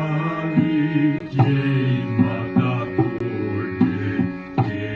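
Outro music: plucked strings over steady drone tones, with sharp struck or plucked notes a few times a second, in an Indian-style setting.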